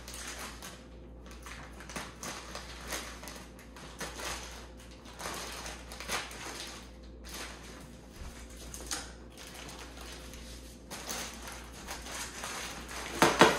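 A vacuum-sealed plastic bag crinkling and rustling as it is opened and handled, with irregular crackles throughout and a sharper, louder rustle a little before the end.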